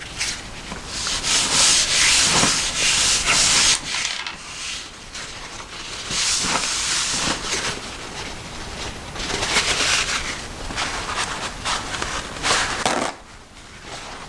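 Paper towel wiping and rubbing a steel knife blade around its pivot hole. It comes in spells of hissy scrubbing strokes with short pauses between.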